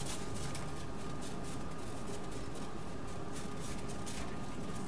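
Steady low background noise with a faint, even hum and no distinct event.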